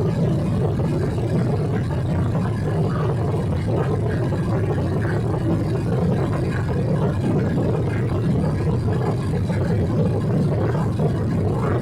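Steady low rumble of a Boeing 777-300's jet engines and airflow, heard inside the passenger cabin, with no change in level.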